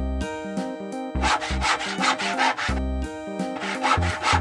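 Saw cutting in quick back-and-forth strokes, about four a second, in two runs: one starting about a second in, another near the end. Background music plays throughout.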